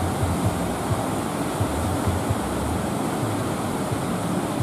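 Steady rush of sea waves and surf, with wind buffeting the microphone in low, irregular rumbles.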